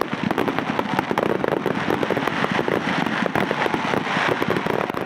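Fireworks going off in a dense, continuous barrage of sharp crackling pops, many a second without a break.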